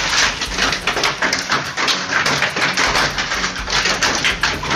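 Hail and heavy rain falling on a hard courtyard floor and surfaces: a dense, steady rush of many small, sharp hits.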